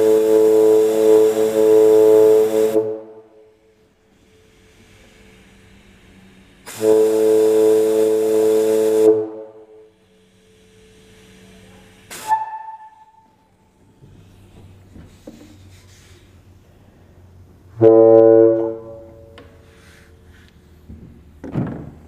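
Homemade plastic-jug air horn blown with compressed air: a steady horn tone with rushing air hiss. Two blasts of about three seconds each, a brief toot, then a shorter blast of about a second.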